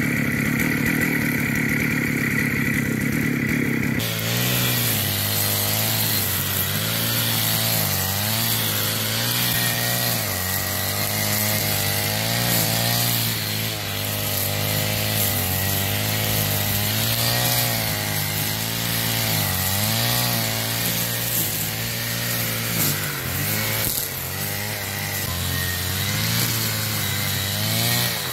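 Stihl FS 550 brushcutter's two-stroke engine running at high revs with square nylon line in an AutoCut head cutting through dense grass and undergrowth, starting about four seconds in. The engine pitch dips and recovers again and again as the line bites into the thick growth.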